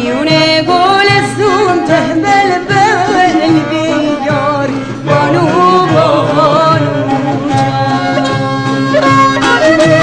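Mazandarani folk music: a wavering, ornamented melody line over a steady, repeating low drum beat.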